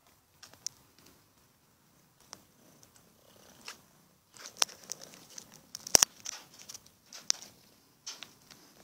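A kitten and a dog crunching dry dog kibble from a plastic bowl: irregular crisp crunches and clicks, sparse at first and thicker from about four seconds in, with one sharp click about six seconds in.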